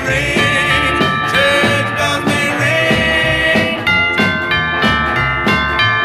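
A 1950s doo-wop record playing: a vocal group's song over a band with a steady beat.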